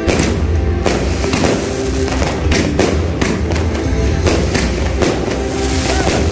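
A 228-shot fireworks cake firing shot after shot: sharp bangs at an uneven pace of about two a second. Background music with steady held tones and a bass line runs underneath.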